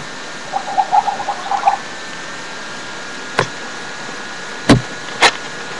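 A short, rapid pulsing burble lasting about a second, followed by three sharp knocks, the second one the loudest and deepest.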